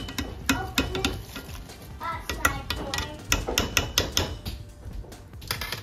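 Chopped cabbage being dropped by hand into a pot of chicken broth: a quick, uneven run of crackles and knocks as the leaves land in the pot.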